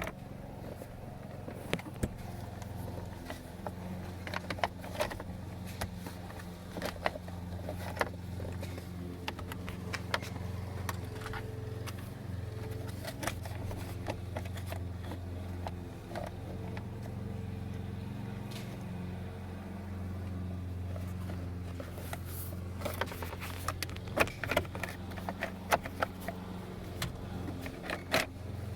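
Plastic steering-column trim cover being handled and pressed into place: scattered clicks, taps and knocks, busiest near the end, over a steady low hum.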